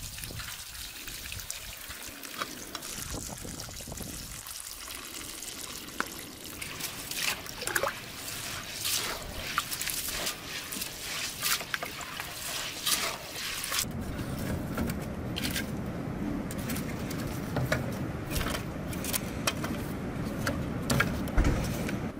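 Rice being washed in a large metal pot: water runs and splashes over the grains, and hands stir and rub the wet rice in the water.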